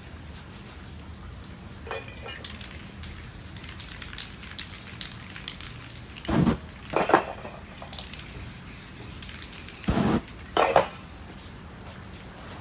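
Aerosol spray-paint can hissing in many short strokes, stopping about two seconds before the end. A few louder, duller thumps fall among the strokes.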